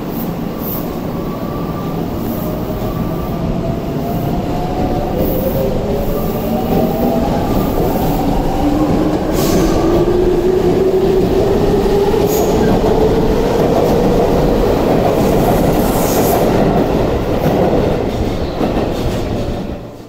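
Tobu 20050 series electric train pulling away from a platform. Its inverter-driven traction motors whine in several tones that climb steadily in pitch as it gathers speed, over the rumble of the wheels and a few sharp clicks.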